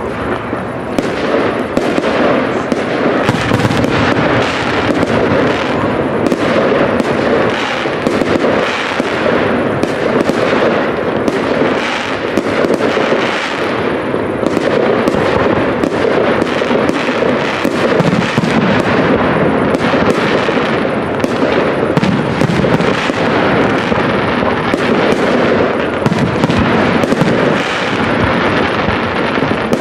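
Fireworks going off in a dense, continuous run of overlapping bangs and crackles with no pause. The reports of several neighbouring riverside displays going off at once blend into one another.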